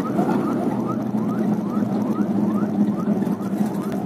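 Ambulance siren in a fast yelp, a rising sweep repeated about three times a second, over steady engine and road noise from a moving vehicle.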